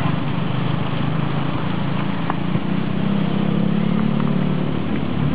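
An engine running steadily: an even low hum under a constant rushing noise.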